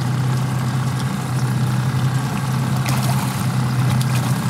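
Boat engine running steadily at trolling speed, with a hooked kokanee salmon splashing at the surface beside the landing net from about three seconds in.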